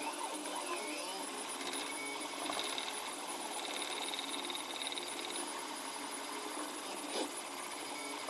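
3D printer stepper motors whirring and whining as the print head moves, the pitch of the whine shifting from move to move, with a short click about seven seconds in.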